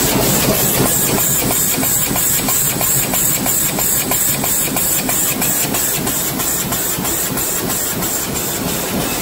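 Plug-pin production machinery running: a stamping and forming press cycling with rapid, even clacking over a steady hiss.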